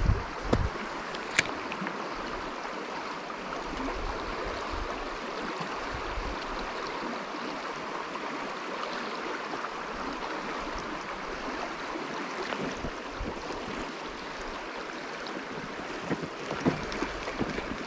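Creek water flowing steadily over a stony bed: a continuous rushing of current. One sharp click about a second and a half in.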